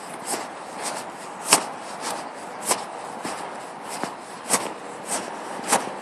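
A person's footsteps on an asphalt pavement at a steady walking pace, about ten even steps over a few seconds, over a steady background hiss.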